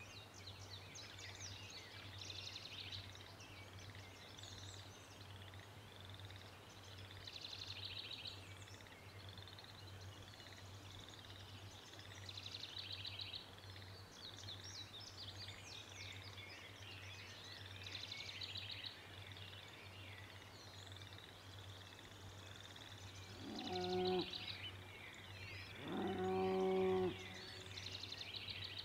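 Birds chirping and trilling continuously over a steady low hum. Two low, drawn-out calls about 24 and 26 seconds in are the loudest sounds, the second lasting over a second.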